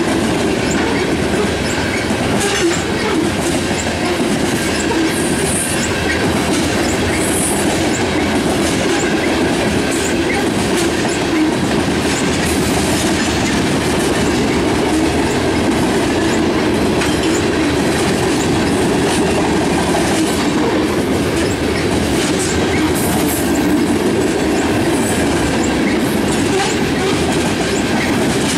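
Covered hopper cars of a BNSF grain train rolling past: a steady rumble of steel wheels on rail with clickety-clack over the joints, and brief high wheel squeals a few times.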